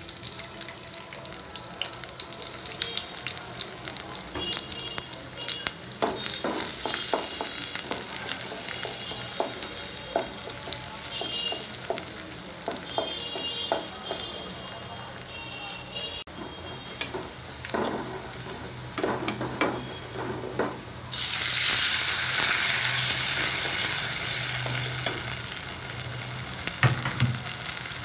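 Sliced onions sizzling and crackling in hot oil in an aluminium pot. A wooden spoon scrapes and knocks against the pot as they are stirred. The sizzle grows louder about three quarters of the way through.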